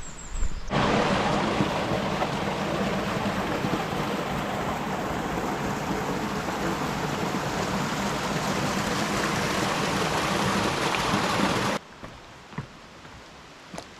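Rushing stream water, a steady loud splashing rush that starts abruptly about a second in and cuts off suddenly near the end.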